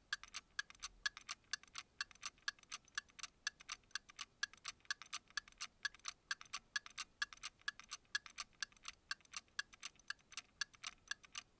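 Faint, even ticking: sharp clicks at a steady rate of about four a second.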